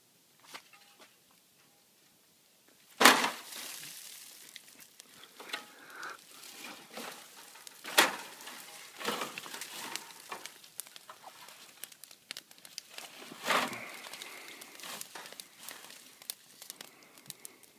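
A small fire crackling and popping after a quiet start, with three sharper, louder cracks spread through.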